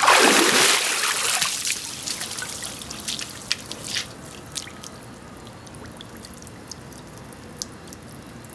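Pool water pouring and splashing off a person climbing out of a swimming pool, loudest about the first second and fading. Scattered drips and small splashes follow as the water settles.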